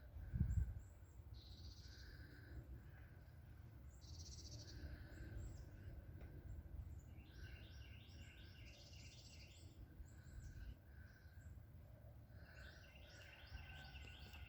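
Faint calls of small wild birds: short high chirps scattered throughout, with two quick series of repeated chirps, about seven seconds in and near the end, over a low steady rumble.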